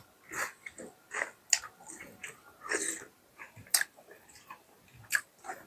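Close-miked eating: irregular wet chewing, biting and lip-smacking as a person chews mutton curry with roti.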